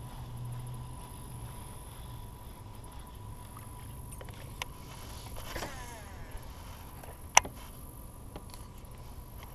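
Baitcasting reel being handled while fishing from a kayak: a brief whir falling in pitch about five and a half seconds in, and a few sharp clicks, the loudest about seven seconds in, over a faint steady hum.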